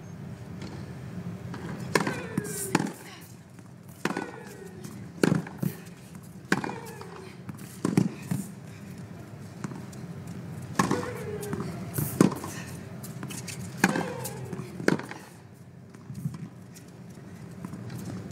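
A tennis rally: rackets striking the ball back and forth, a sharp pop about every second and a half, with ball bounces between, and on several shots a player's short grunt falling in pitch.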